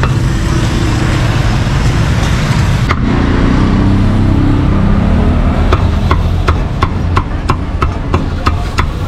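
Cleaver chopping roasted meat on a chopping block: a run of rapid, steady chops, about three a second, starting about two-thirds of the way in, over a steady low rumble of road traffic.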